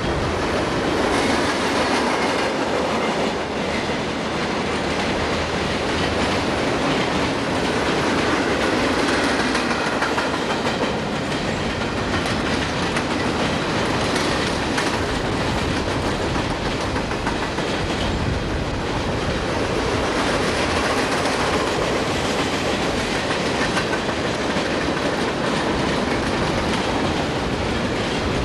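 Freight cars of a CSX mixed freight train rolling past: a steady, loud noise of steel wheels on the rails, with repeated clicking as the wheels cross the rail joints.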